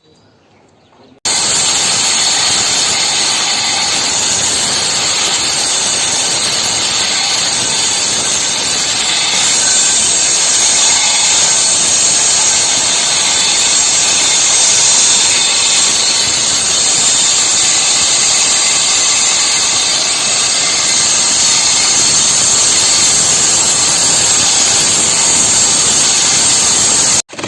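Power saw cutting through a concrete slab, a loud, steady grinding hiss that starts abruptly about a second in and runs without a break.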